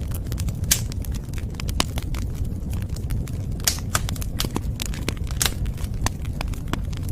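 Wood fire burning: a steady low rumble of flames with frequent, irregular sharp crackles and pops from the burning wood.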